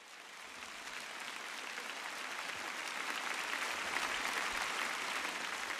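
A large audience applauding. The clapping swells over the first few seconds and begins to fade near the end.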